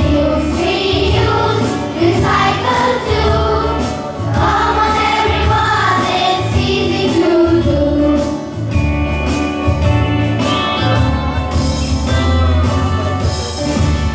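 A song with a group of voices singing over backing music with a steady low beat. The singing thins out after about the middle, leaving mostly the instruments.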